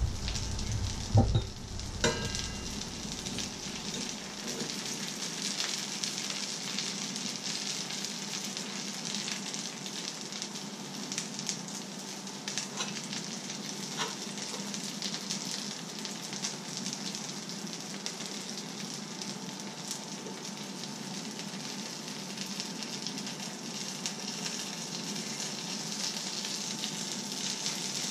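Eggs frying in a pan, a steady sizzle, with a couple of sharp knocks in the first two seconds.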